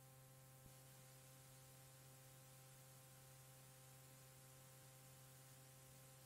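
Near silence: a faint steady electrical hum and hiss from cassette tape playback, with one tiny click about half a second in.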